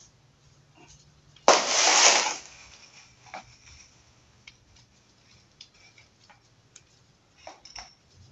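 Metal light stand being opened out: a sharp clatter and scrape about one and a half seconds in as its legs spread, then scattered light clicks and ticks from its joints and locking knob.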